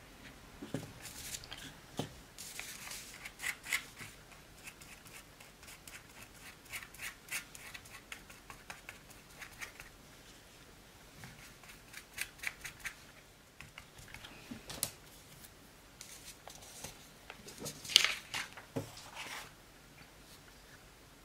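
Brush spreading white glue on paper in runs of quick scratchy strokes, with paper handled between them. One sharp knock near the end is the loudest sound.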